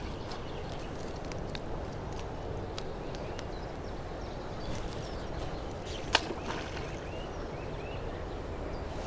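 Quiet riverbank ambience: a steady low outdoor hiss with faint distant bird calls. A few small clicks come from handling the fishing rod and line, with one sharper click about six seconds in.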